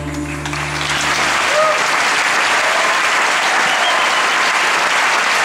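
Theatre audience applauding at the end of a song, the applause swelling in the first second and then holding steady. The band's last held notes fade out during the first second and a half.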